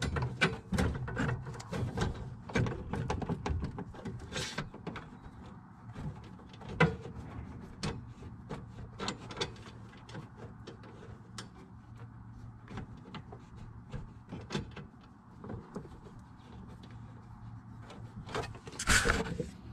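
Irregular small clicks, taps and scrapes of copper gas pipe being handled and pushed into a brass compression fitting, with a louder rustle and scrape near the end.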